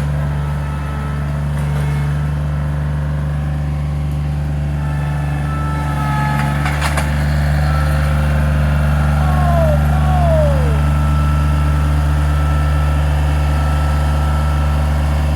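A large engine running steadily at a constant speed, with a sharp knock about seven seconds in and two short falling squeaks shortly after.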